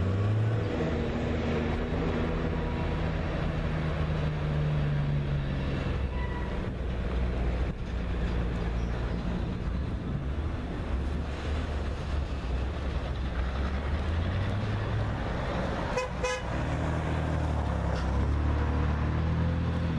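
Long freight train rolling past, steel wheels on rail, over a steady low diesel-locomotive engine drone that grows stronger over the last few seconds. A brief sharper rattle or squeal comes about sixteen seconds in.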